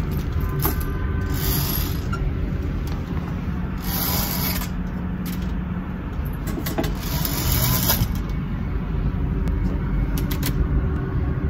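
Steady low rumble of city street traffic, with three short bursts of hiss over it.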